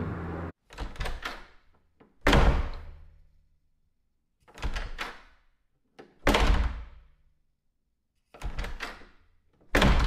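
A series of sharp thumps and knocks, about one every two seconds, each trailing off briefly. The loudest comes a little over two seconds in.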